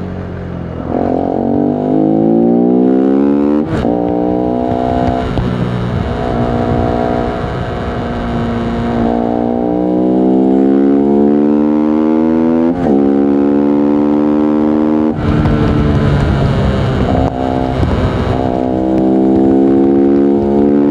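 Voge 125R's 125 cc single-cylinder engine pulling through the gears. The pitch climbs with the revs and drops sharply at an upshift about four seconds in and again about thirteen seconds in, then it runs at steadier, rougher revs.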